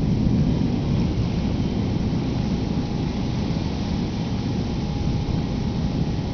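Storm wind gusting across the microphone: a steady, fluctuating low rumble.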